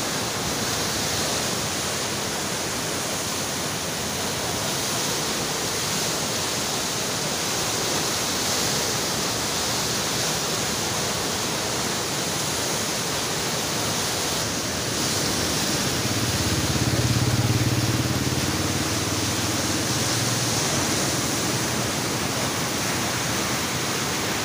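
Muddy floodwater of the swollen Neelum River rushing past in a steady, churning wash of noise. A low hum swells and fades about two-thirds of the way through.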